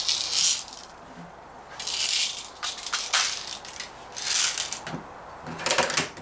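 Rattling and clicking from handling a Daisy 340 spring-piston BB pistol, in several short bursts with a quick run of sharp clicks near the end.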